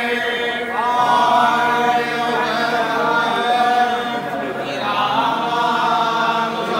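A group of men chanting in unison, several voices holding long drawn-out notes. A new phrase rises in about a second in and another about five seconds in.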